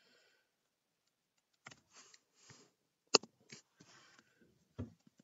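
Scattered keystrokes on a computer keyboard, the loudest a single sharp click about three seconds in, with a few soft breathy noises between them.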